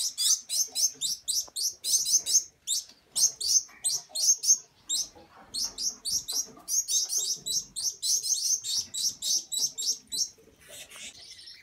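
Gouldian finch fledglings begging: rapid, high chirps, about five or six a second, in long runs with a short pause about halfway and a quieter stretch near the end.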